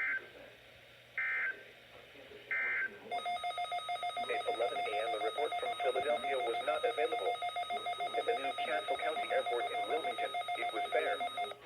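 Three short data-burst screeches from a NOAA Weather Radio broadcast, the SAME end-of-message code closing the weekly test. Then, about three seconds in, a weather radio receiver starts a rapid electronic alert beep that runs over the broadcast voice and cuts off just before the end.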